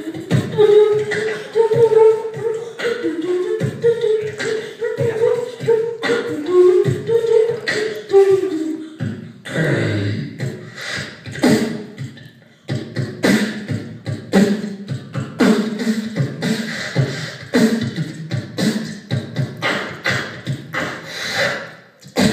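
A boy beatboxing into a handheld microphone through a PA: sharp kick and snare sounds with a hummed melody line over the beat in the first half. Then a deep bass sound about ten seconds in, followed by a busier run of drum sounds. It stops just before the end.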